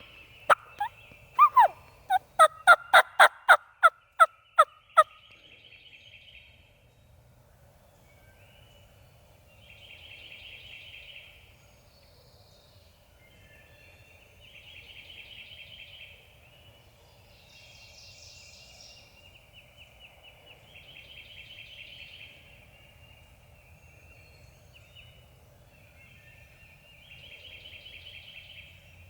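Wild turkey calling: a run of about a dozen loud, sharp yelps in the first five seconds, then fainter gobbles, each a rattling call of a second or two, repeating about every five seconds.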